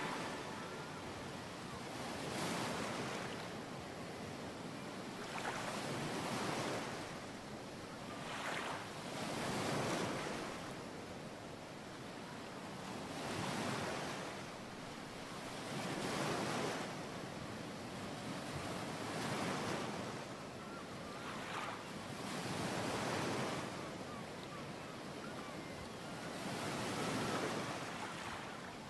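Ocean surf: waves washing in and drawing back in slow surges about every three seconds.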